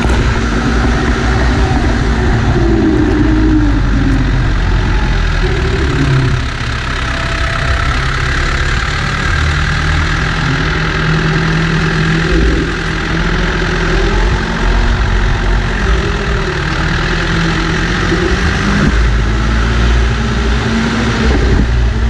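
B95 backhoe loader's diesel engine running close to the microphone while the front loader works the ground, its pitch rising and falling with changing engine speed.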